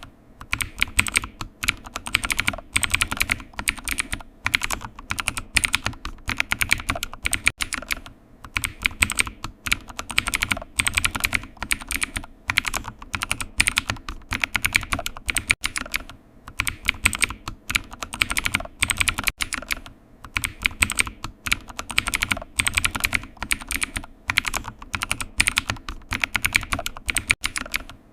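Typing on a computer keyboard: a fast, continuous run of key clicks, broken now and then by short pauses.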